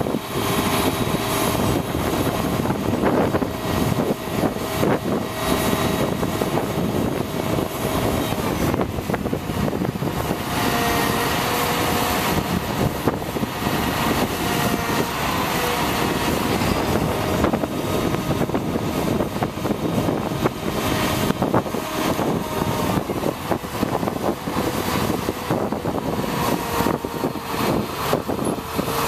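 Truck engine running steadily to drive the digger derrick's hydraulics, with a faint steady hydraulic whine over it as the boom is worked.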